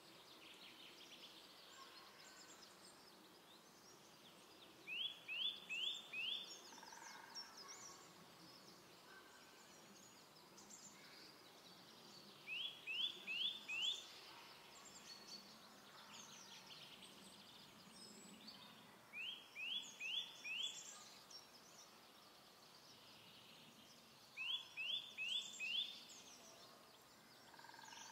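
Eurasian nuthatch singing its clear, rising 'wie-wie-wie' song. Four phrases come a few seconds apart, each a quick run of four or five upslurred notes lasting about a second and a half. Faint chirping of other birds runs underneath.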